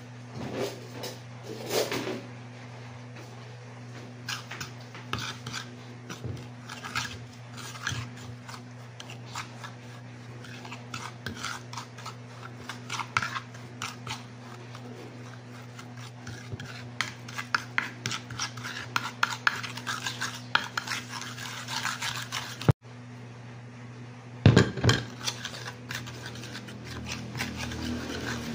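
A metal spoon scraping and clinking against a ceramic plate, stirring powdered seasoning into a thick oily sauce in many quick strokes, with a louder clatter near the end. A steady low hum runs underneath.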